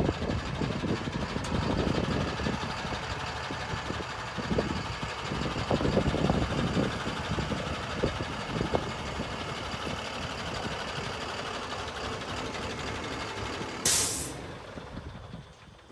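2006 Ford F650 service truck running, a steady mechanical noise with irregular low rumbles. Near the end comes a sudden loud hiss of released air, and after it the sound drops away.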